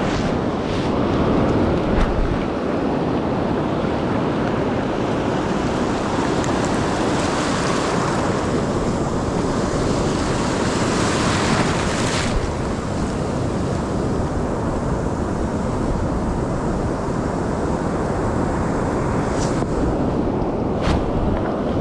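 Ocean surf breaking and washing up the beach, with wind buffeting the microphone. The wash swells louder about eight seconds in and falls back a few seconds later.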